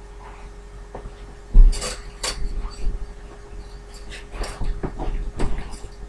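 A heavy thump about a second and a half in, then scattered sharp clicks and knocks, over a faint steady hum.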